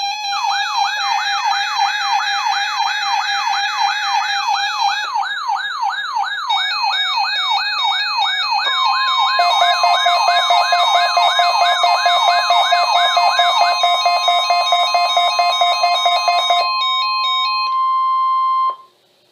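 Electronic alarm tones over a weather radio: a siren-like sweep that rises in pitch over and over, a little more than twice a second, with stepping beeps above it. From about 9 seconds in, a steady single-pitch NOAA Weather Radio 1050 Hz warning alarm tone holds for about ten seconds and then cuts off sharply. This is the alarm sent in the weekly test to set off weather alert receivers.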